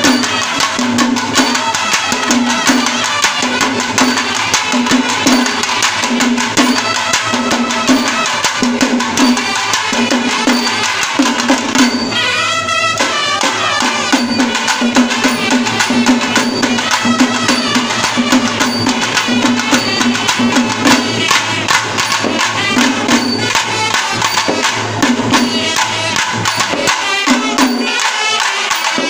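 A traditional Kerala temple ensemble playing loudly: curved brass horns and long pipes blowing over fast, sharp stick strokes on barrel drums. The rhythm is dense and steady, with a short break in the pulse and a sweeping wind figure about halfway through.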